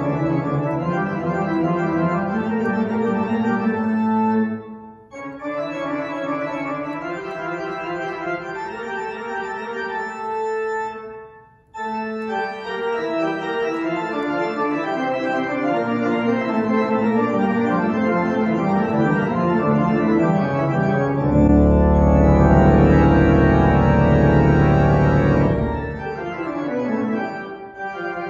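Organ postlude: sustained chords in phrases, broken by two short pauses. About three-quarters of the way through it swells to a loud, full chord with deep bass, then softens.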